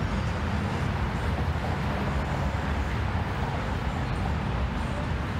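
Steady city street traffic noise: a continuous low rumble of car engines and tyres with no single event standing out.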